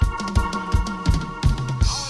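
Ska band playing an instrumental passage: a drum kit beating a fast, even kick drum about three times a second under a bass line and held higher notes, with a cymbal crash near the end.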